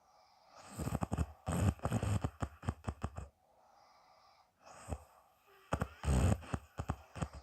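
A woman snoring: two loud, rattling snore breaths, the first about two and a half seconds long and the second about two seconds, with a quieter breath between them.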